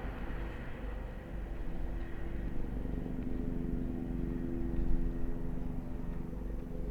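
Helicopter passing overhead, a steady droning hum that grows louder a couple of seconds in and then eases off near the end, over a low rumble.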